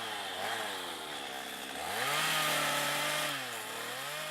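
Two-stroke chainsaw engine revving up and down: its pitch drops, rises sharply about two seconds in and holds, then dips and climbs again near the end.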